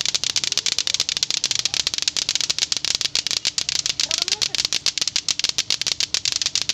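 Several lato-lato clackers, pairs of hard plastic balls on strings, knocking together at once: a dense, rapid clacking of overlapping rhythms that never lets up.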